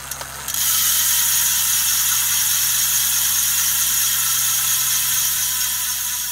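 Industry Nine carbon wheel's rear hub freewheeling as the spun wheel coasts: a loud, steady, high-pitched buzz of its ratchet pawls, starting about half a second in and slowly fading as the wheel slows.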